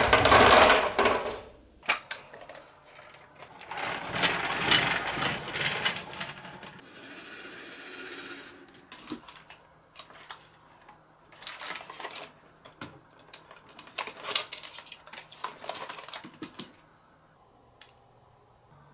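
Glass marbles clattering in a dense rush into a plastic toy bulldozer blade, stopping suddenly about two seconds in. After that come bursts of rattling and scattered sharp clicks of plastic toys being handled, dying away near the end.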